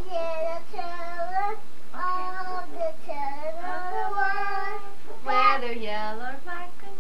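A young girl singing a song in long, held, gliding notes, with a louder phrase about five seconds in.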